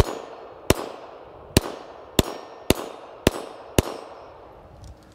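Seven .380 ACP pistol shots from an IMEZ IJ70-17AH wide-body Makarov, fired at an uneven pace about half a second to a second apart, each trailing off in echo. The pistol cycles normally while fed from a single-stack eight-round 9x18 Makarov magazine loaded with .380 that sits loose in its wide magazine well.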